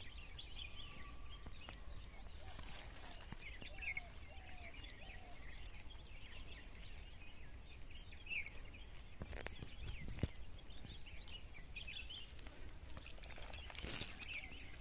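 Faint outdoor ambience full of small birds chirping and calling, with a few soft clicks and knocks about two-thirds of the way through.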